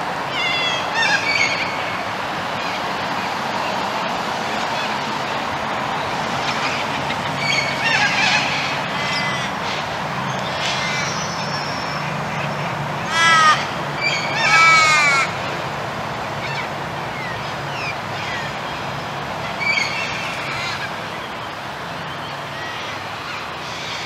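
Noisy miners giving harsh calls in scattered bursts, the loudest two a little past the middle, each a quick run of repeated falling notes. A steady low hum runs underneath.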